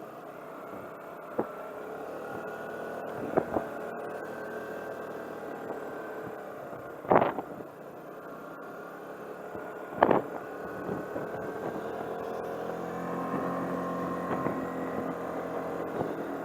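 Car engine and road noise heard inside the moving car: a steady hum, broken by several sharp thumps from bumps, the two loudest about 7 and 10 seconds in. The hum grows a little louder over the last few seconds.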